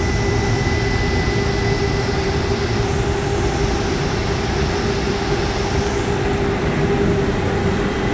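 Cabin noise of a modern electric streetcar running along its track: a steady rumble with a constant low hum and a faint high whine.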